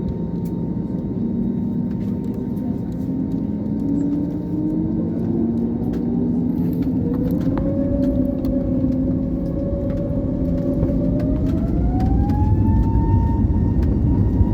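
Airbus airliner's jet engines spooling up, heard inside the cabin: a whine that climbs steadily in pitch for several seconds and then holds, with a low rumble swelling near the end as thrust builds for takeoff.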